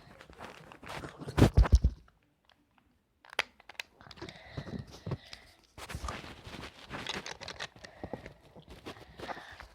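Handling noise: crinkling, clicks and knocks, with a loud low thump about a second and a half in and a short quiet gap after it.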